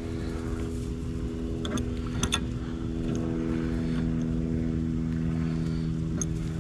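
A steady motor hum with an even, unchanging pitch, and a few light clicks about two seconds in and near the end.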